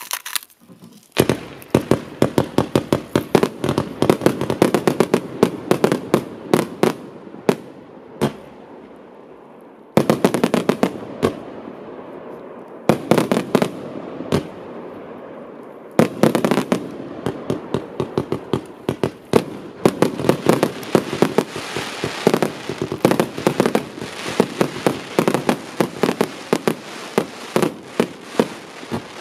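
Celtic Fireworks 'It's Showtime' 100-shot cake firing: rapid volleys of launches and bursting shots, several a second. The shots come in waves that surge again about ten and sixteen seconds in.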